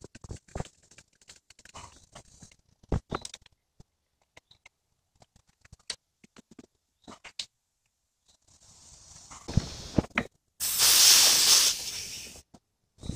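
Scattered light clicks and knocks of hand tools on metal A/C fittings being handled and tightened with a ratchet wrench. Near the end a loud hiss lasting nearly two seconds.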